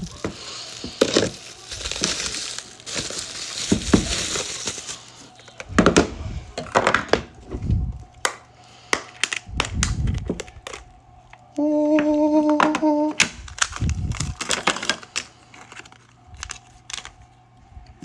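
Bubble-wrap packaging crinkling and tearing as it is cut and pulled open, then a run of sharp clicks and knocks from a black plastic hard case being handled and opened. About two-thirds through, a steady pitched tone sounds for about a second and a half.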